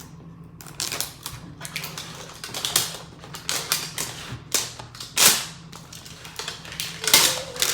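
Plastic packaging crinkling and crackling as a toy box is unwrapped: an irregular run of sharp crackles and snaps, with a louder snap about five seconds in and another near the end.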